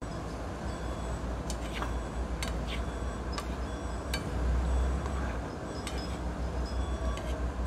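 A metal fork clinks against a frying pan while stirring, giving about half a dozen sharp taps in the first half. A steady low rumble runs underneath.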